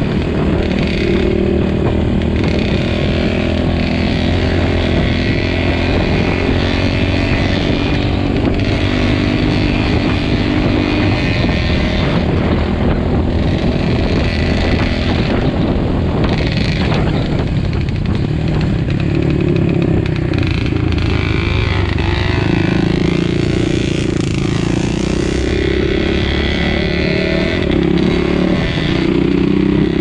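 Enduro motorcycle engine running loud and continuous while riding, heard close up from on board the bike, its note changing about two-thirds of the way through.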